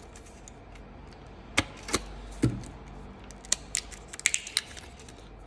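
Small sharp clicks and taps, about eight of them spaced irregularly with a quick cluster near the end, from a BMW remote key fob and its coin-cell battery being handled and worked at.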